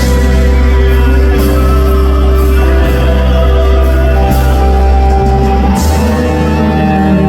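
Live band music in an instrumental passage: held chords over a steady bass, with occasional cymbal washes.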